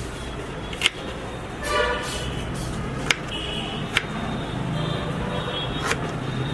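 Four sharp knocks at uneven intervals over a steady low hum, with faint voices in the background.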